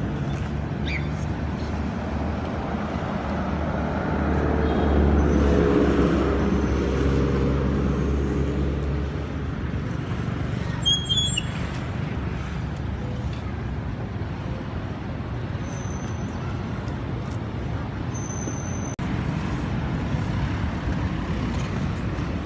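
Road traffic in the background, with one motor vehicle passing: its engine rises and fades about four to nine seconds in.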